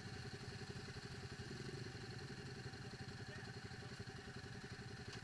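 ATV engine running steadily, with a fast, even pulsing and no change in speed.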